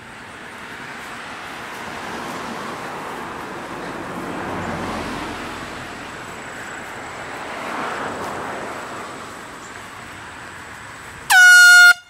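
Rustling noise that swells and fades, then near the end one loud, short blast from a handheld compressed-air horn, its pitch dipping at the start and then holding steady.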